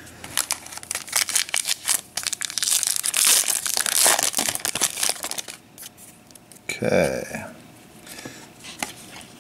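Foil wrapper of a Panini Prizm baseball card pack crinkling and crackling as it is handled and torn open, densest and loudest around the middle, then quieter handling of the cards.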